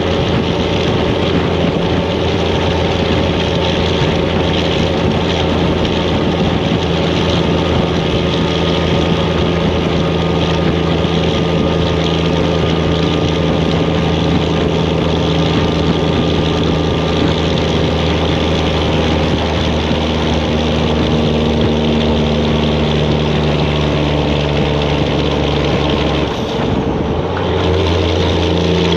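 Detroit diesel engine of a semi truck running steadily under power, its drone slowly climbing in pitch, then dropping out for about a second near the end before coming back at a new pitch.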